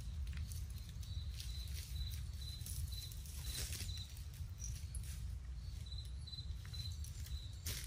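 Faint, evenly spaced high chirps of an insect, about three a second in two runs, over a low steady rumble, with a few soft rustles in dry leaf litter.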